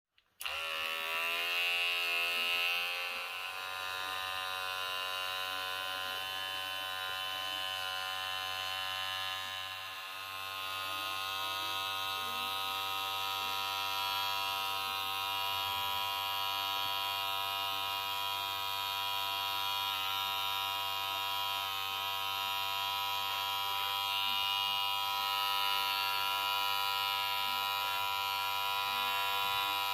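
Wahl cordless rechargeable hair clipper switched on and running with a steady electric buzz. Its pitch climbs for the first couple of seconds as the motor comes up to speed, then holds.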